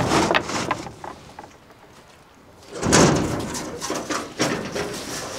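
Two steel garage door leaves swung open one after the other: a stretch of rough noise as the first opens, a lull, then another from about three seconds in as the second opens.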